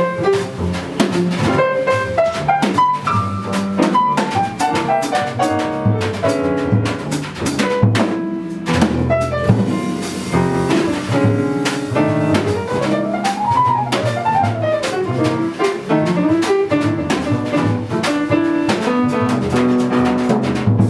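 Live jazz: a piano plays quick melodic runs of notes rising and falling over a plucked double bass and a drum kit with cymbals.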